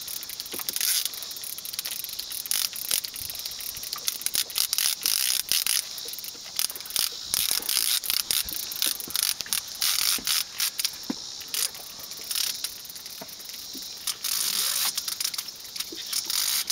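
Fishing reel clicking rapidly and irregularly under load while an angler fights a hooked striped bass on a hard-bent rod.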